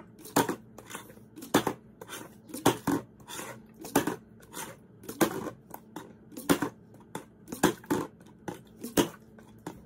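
A partly filled plastic Gatorade bottle is flipped again and again and knocks down on a hard floor about once a second, eight strong hits with lighter knocks between them.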